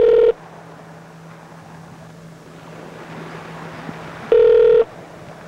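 Telephone ringback tone heard over the phone line while a call rings out: a steady, slightly beating tone that stops just after the start, about four seconds of quiet line hiss and hum, then a short half-second ring and another ring starting near the end.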